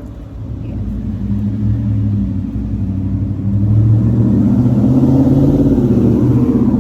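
A motor vehicle's engine rumbling nearby, growing louder over the first few seconds and then holding steady.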